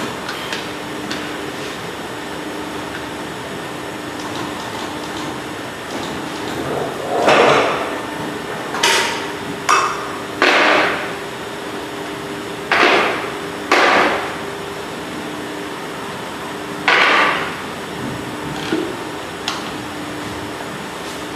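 Steady hum of a hydraulic air-suspension crimping machine, with about seven loud metallic knocks and clanks between roughly seven and seventeen seconds in, as a steel air-strut body is worked in the crimping dies.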